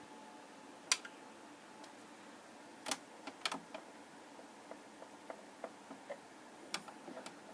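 A few sharp, isolated clicks and lighter ticks over faint room hiss, spaced irregularly with the strongest about a second in and around three seconds in.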